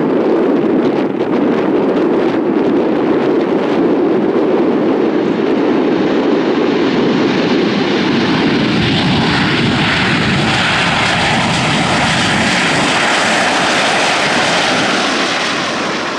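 Boeing 737-8 MAX's CFM LEAP-1B turbofan engines running at taxi power. The steady rushing hiss turns brighter and higher about halfway through as the jet swings round to face the listener, and it fades out near the end.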